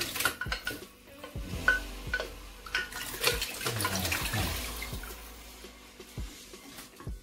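Blended soup base pouring and splashing from a glass blender jug into a large pot, with sharp knocks of a wooden spoon scraping the jug out. The pouring rushes loudest in the middle and tails off toward the end.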